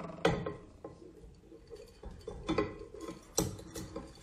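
Small crabs tipped from a glass bowl into a glass pitcher, their shells clicking and knocking against the glass in a handful of separate knocks.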